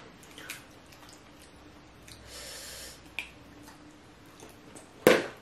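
Close-miked eating of a mussel by hand: faint clicks and a soft breathy slurp about two seconds in, then a short, sharp, loud mouth-and-nose sound just before the end.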